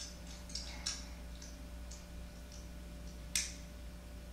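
Light plastic clicks of a small toy car being fiddled with in a toddler's hands, scattered irregularly about half a second apart, with a sharper click near the end. The toy car is broken, and the clicks come from its pieces being handled.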